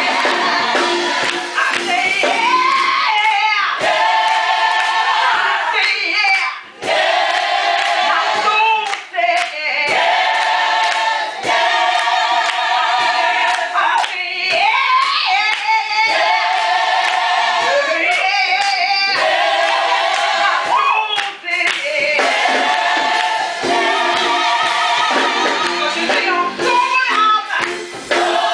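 Church choir singing a gospel song, led by a woman soloist on a microphone, with wavering sung notes throughout.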